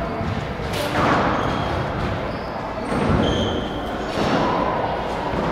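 Squash rally: the ball knocking off racket and court walls, with a sharp hit about a second in and short high squeaks of court shoes on the wooden floor around the middle.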